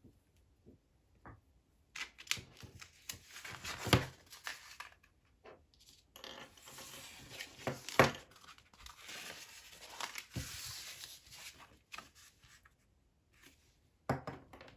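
Sheets of heavy cotton printmaking paper rustling and sliding as they are handled and squared up on a cutting mat, with two sharp knocks, about 4 and 8 seconds in.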